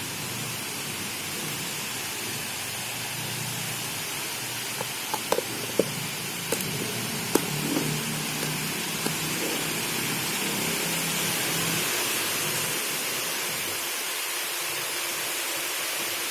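Steady hiss, with a handful of sharp plastic clicks and taps around the middle as the lid of a clip-lock plastic food container is pressed on and closed.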